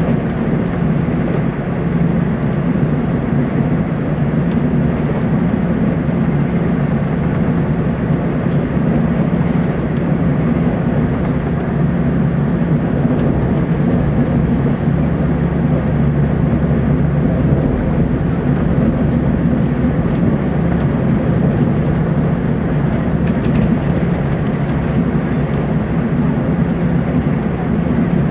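Inside the passenger car of a Taiwan Railways TEMU2000 Puyuma tilting electric train running between stations: a steady low rumble of wheels on rail and running gear.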